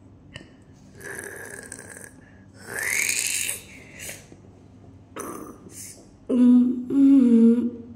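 A person's wordless vocal sounds. First come a few short breathy, rasping noises, one with a rising pitch. Near the end comes a louder drawn-out voiced sound in two parts, its low pitch wavering, like a groan or hum.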